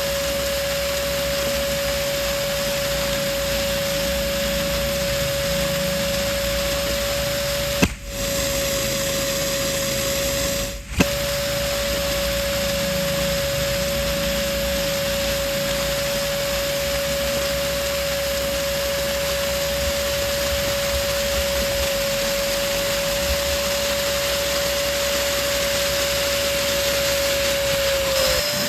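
Electric balloon pump running steadily with a constant hum and airy blowing noise. It is briefly interrupted by a click and dropout twice, and its pitch sags slightly near the end.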